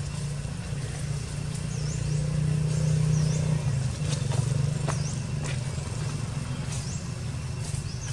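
A steady low mechanical hum, loudest about two to three and a half seconds in, with short high chirps that dip and rise quickly, repeated every second or so.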